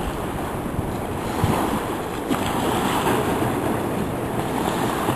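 Steady rush of a fast-flowing river, with wind buffeting the microphone.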